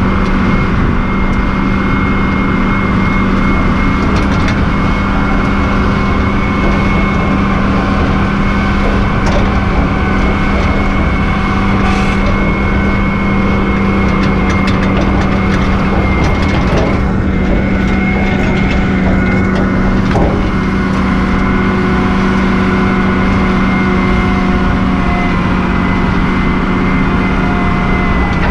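Case IH MX120 tractor's diesel engine running steadily at a constant pitch while towing a fertilizer spreader, with a thin steady high whine and a few faint knocks.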